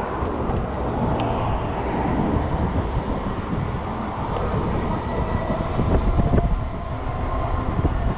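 Strong gusty wind buffeting the microphone while riding a fat-tire e-bike, a continuous rumble that swells and fades, gusting loudest about six seconds in.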